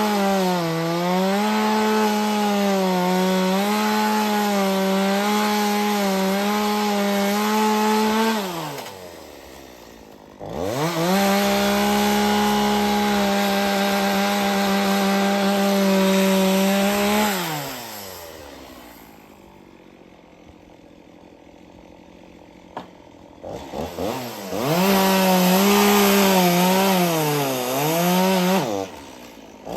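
Two-stroke chainsaw on a chainsaw mill running at full throttle through a log, its pitch wavering under the load of the cut. The engine drops back twice and then revs up again, with a few sharp clicks just before the last rev-up.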